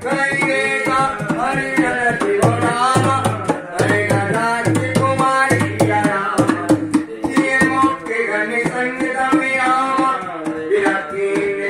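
A man singing a Hindi devotional song into a microphone, accompanied by a dholak barrel drum played with the hands in a steady rhythm.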